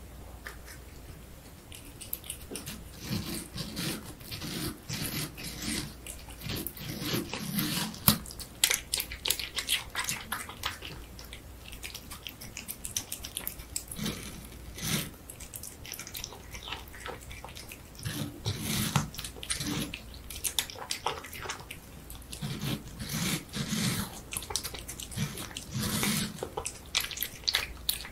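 A cat eating juicy watermelon flesh: rapid wet smacking, licking and chewing clicks in uneven flurries, starting about two seconds in.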